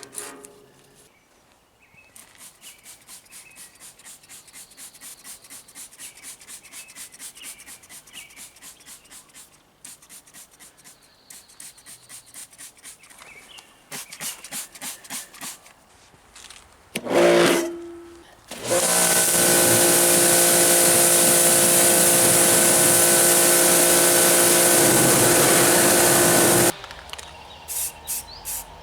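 Rhythmic rubbing strokes, about two to three a second, as paint is worked off the lathe cabinet by hand. Near the end a pressure washer starts with a short burst, then runs as a loud steady spray hiss over a steady machine hum for about eight seconds and cuts off suddenly.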